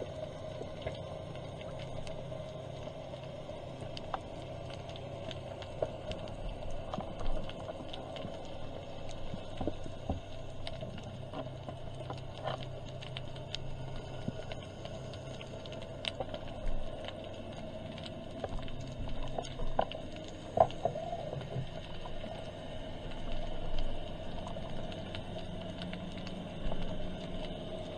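Underwater ambience picked up by a submerged camera: a steady low drone with scattered clicks and crackles, and a few louder knocks now and then.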